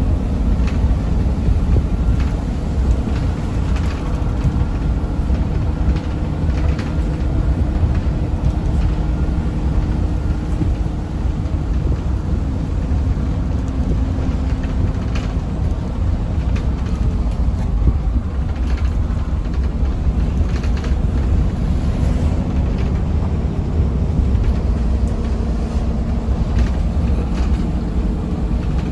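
Volvo B9TL double-decker bus's six-cylinder diesel and road noise, heard from the upper deck while under way: a steady low rumble with a faint hum that shifts slowly in pitch, and occasional light rattles and clicks.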